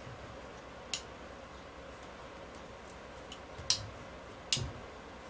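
Bolt of a Marlin lever-action rifle being slid back into the receiver: a few sharp metallic clicks, one about a second in and two more near the end.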